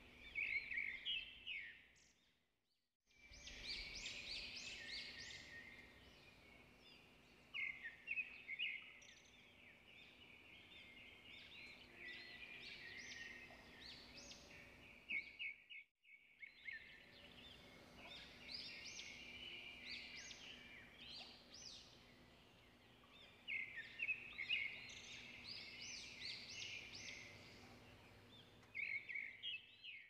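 Birds singing in woodland: many overlapping quick chirps and trills of small songbirds, faint overall, that stop briefly twice, a few seconds in and about halfway through.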